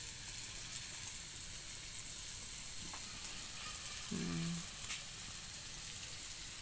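A batch of gujiyas deep-frying in hot oil in a kadhai: a steady sizzle of bubbling oil.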